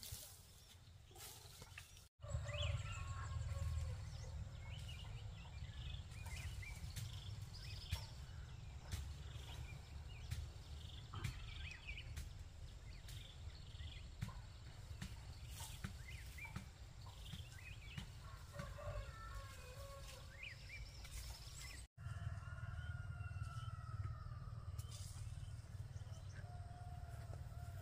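Chickens clucking and calling, many short calls scattered through, over a steady low rumble.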